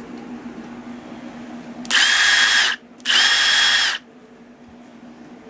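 Milwaukee 2857 M18 brushless 1/4-inch hex impact driver run twice with no load and an empty chuck, each time a steady high whine lasting under a second, without hammering. Its One-Key maximum speed is set to 3,600 rpm.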